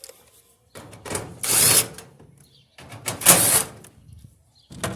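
Two loud scraping, sliding noises, about a second each and a second apart, from sheet-metal panels and parts of a gas clothes dryer being handled and shifted during disassembly, with small clicks between them.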